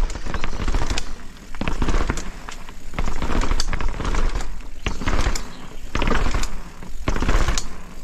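Specialized Kenevo e-mountain bike clattering and rattling as it is ridden down a flight of steps, with about two hard jolts a second over a low rumble.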